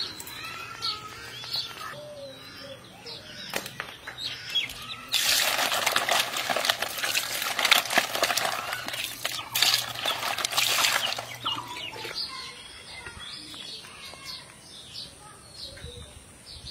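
Live fish thrashing in a wicker basket: a dense, wet, rattling flapping that starts suddenly about five seconds in and stops about six seconds later. Birds chirp throughout.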